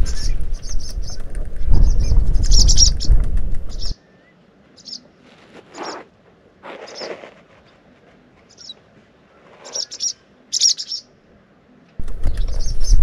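Short, high chirps repeating in quick runs from newly hatched bird chicks in the nest, one gaping for food. Wind buffets the microphone for the first few seconds and again near the end.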